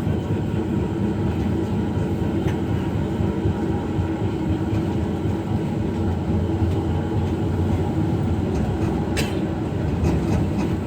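Passenger train running on the rails, a steady low rumble heard from inside a coach, with faint clicks and a short sharp noise about nine seconds in.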